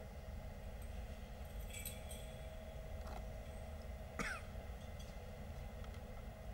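Faint metallic clinks of a censer's chains and lid over a steady low hum. A short sharp sound about four seconds in is the loudest thing.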